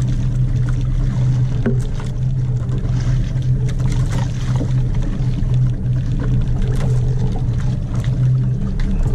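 Fishing boat's engine running steadily, a constant low hum, with scattered light clicks and knocks on board.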